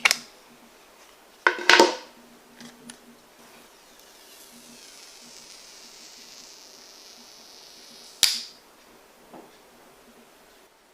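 Handling noises from unboxing a phone and its packaging: a sharp click at the start, a cluster of knocks just under two seconds in, a faint rustling hiss for a few seconds, and another sharp click about eight seconds in.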